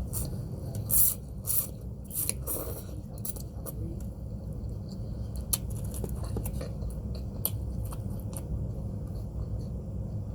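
Eating close to the microphone: chewing with scattered short clicks and scrapes, a few louder ones in the first three seconds, over a steady low hum.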